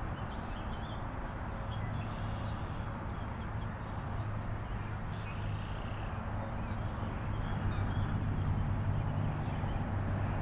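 A steady low engine-like hum that grows louder in the last few seconds, with a few short high bird chirps about two and five seconds in.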